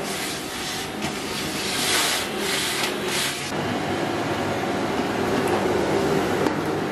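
Canister vacuum cleaner running steadily. In the first half the crevice tool sucks along the skirting board with a bright hiss; about halfway through the hiss drops away and a duller steady hum remains as the floor brush works over the rug.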